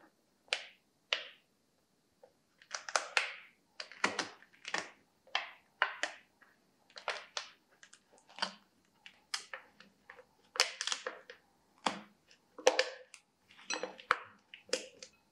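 Thin clear plastic bottle crinkling and crackling in short, irregular bursts as it is squeezed onto a metal pipe and taped around the joint.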